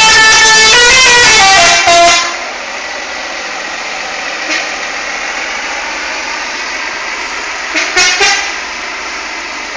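A bus's telolet horn, a musical multi-tone horn, playing a stepped multi-note tune that cuts off about two seconds in. Then steady traffic noise, with two short loud sounds near the end.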